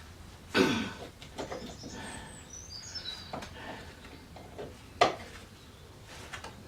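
Birds chirping faintly, with a short loud sound falling in pitch about half a second in and a few knocks, the loudest a sharp click about five seconds in.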